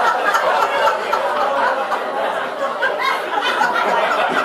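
Small audience laughing and chattering together.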